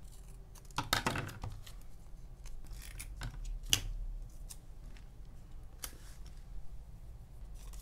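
Paper and sticker handling: light rustling and small taps as cut-out stickers are peeled and pressed onto a journal page, with a louder rustle about a second in and a sharp click a little under four seconds in.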